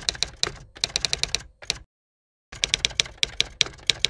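Typewriter keys striking in quick runs of sharp clacks, about six a second, in two runs with a short pause a little before halfway.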